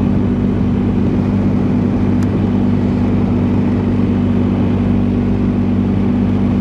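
BMW R1250 GS Adventure's boxer-twin engine running at a steady cruising speed, a constant drone under wind and road noise.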